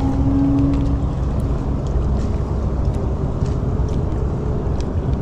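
A boat motor runs steadily with a low rumble. Its hum is strongest in the first second and then fades. A few faint ticks sound over it.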